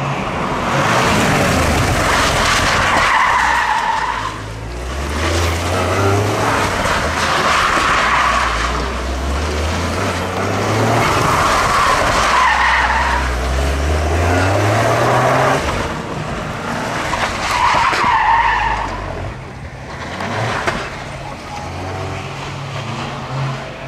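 Rally car engine revving hard and dropping off again and again as the car accelerates and brakes through a tight tarmac course. The tyres squeal in the turns several times.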